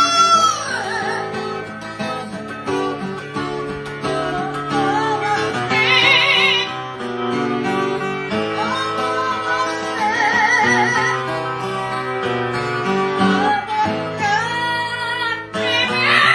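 Music: an acoustic guitar with a high, wavering singing voice coming in and out every few seconds.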